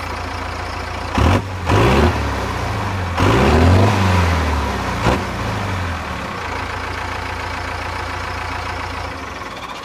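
Cummins 4BT four-cylinder turbodiesel idling through a 4-inch exhaust with a Jones full-boar muffler. It is blipped twice quickly, revved once for longer with pitch rising and falling, and given a last short blip before settling back to idle. The sound fades just before the end.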